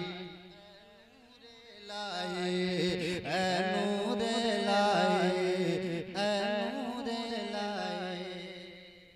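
A man singing a naat: the end of one line fades out. About two seconds in, a long, wordless melodic phrase begins, its pitch wavering up and down, and it fades out near the end.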